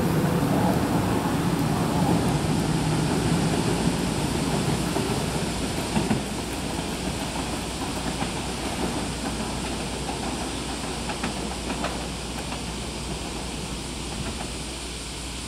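500 series Shinkansen (Hello Kitty car livery) departing and pulling away: a steady rushing rumble of the running train that fades gradually as it recedes, with a few faint clicks along the way.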